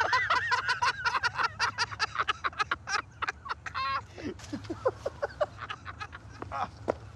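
Men laughing hard in rapid short bursts, thinning out about four seconds in.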